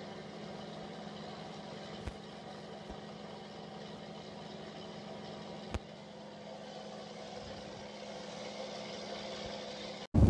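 Fishing boat's engine running steadily while the boat travels, a constant even hum, with two faint knocks partway through.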